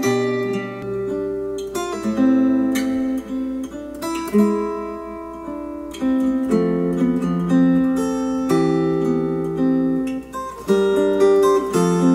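Acoustic guitar music, plucked and strummed chords, played back through hi-fi bookshelf speakers.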